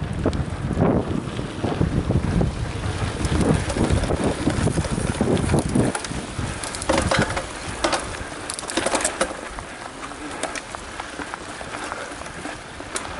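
Mountain bike ridden fast over a rough dirt track, with wind buffeting the microphone, a low rumble from the tyres and ground, and scattered clicks and rattles from the bike over the bumps. The rumble is heaviest in the first half and eases off near the end.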